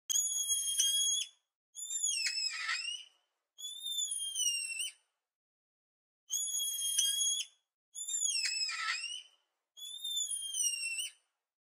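Emperor tamarin giving high-pitched whistling calls: six calls of about a second each, some steady and some falling in pitch, in two matching sets of three.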